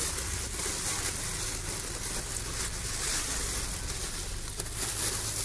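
Thin polythene bag rustling and crinkling as it is handled and stretched around a metal cylinder, over a steady low background hum.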